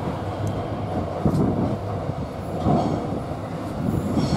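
Melbourne suburban train approaching through an underground station tunnel: a steady low rumble with a few heavier thuds from the wheels on the track.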